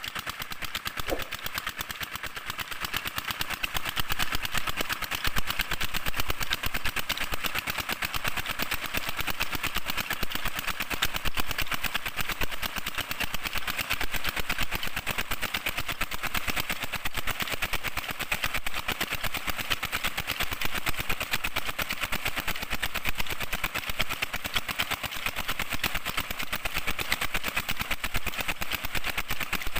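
16-horsepower Peter diesel engine running steadily with a fast, even knock as it drives a tube-well water pump, with water gushing hard from the 4-inch delivery pipe.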